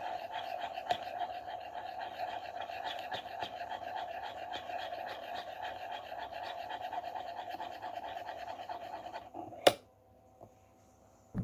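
Sauce cooking in a pan on the stove: dense fine crackling over a steady hum. It stops abruptly about nine seconds in, followed by a single click.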